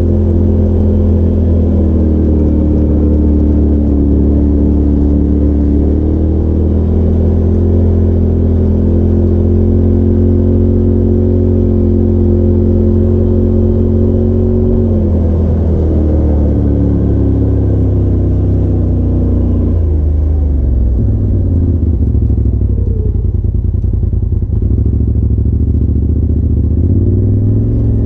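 Polaris RZR side-by-side's engine running under way, loud and steady at first, easing off about halfway through and picking up again near the end.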